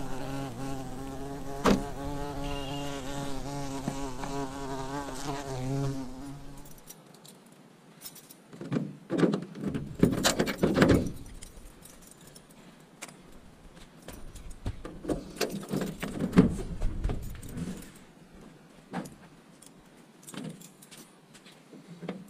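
A steady buzzing drone with a slightly wavering pitch for about six seconds, then cutting off. After it come scattered metallic knocks, rattles and jangles in two clusters, as a metal garage door is unlocked and lifted.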